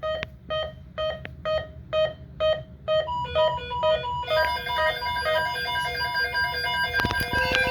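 Several NOAA weather radios sounding their alert beeps for a severe thunderstorm watch. One radio beeps about twice a second; a second, higher-pitched one joins about three seconds in, and more join a second later in a dense overlapping chorus of beeps. A few sharp clicks come near the end.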